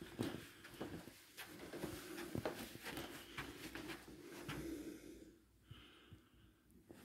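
Faint handling noise and soft footsteps of someone carrying a handheld camera through carpeted rooms: scattered light knocks and rustles, quieter for the last couple of seconds.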